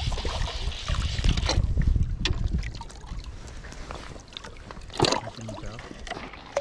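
Lake water sloshing and splashing around a wading angler, with wind rumbling on the microphone. A few sharp knocks, the loudest about five seconds in, come from gear being handled at an aluminium fishing ladder.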